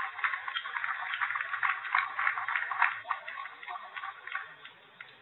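Spectators applauding after a padel point, a dense patter of clapping that dies away about four seconds in.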